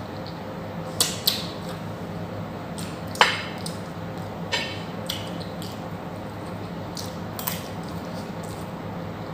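Close-up eating sounds of someone chewing fried chicken and goat meat: scattered wet smacks and crunchy clicks, the loudest about three seconds in, over a steady low hum.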